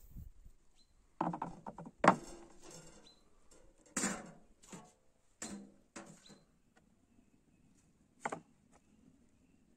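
A series of irregular knocks and clatters from objects being handled, about seven in all, the sharpest about two seconds in.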